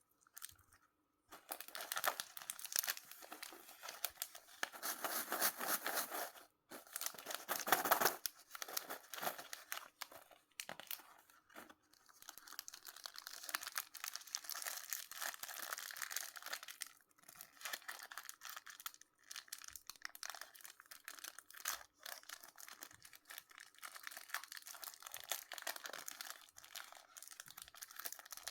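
Sweet wrappers and packaging being torn open and crinkled by hand, in bouts of dense crackling with short pauses.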